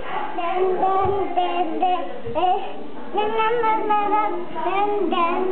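A toddler singing in a high, wordless sing-song voice with held, wavering notes, along with a few low thumps.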